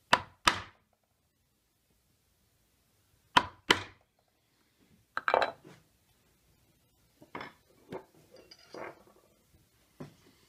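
A mallet striking a steel background punch into the wood of a carving's recessed ground. The sharp taps come in two pairs, then a quick flurry about five seconds in, followed by quieter knocks of tools being handled and set down on the bench.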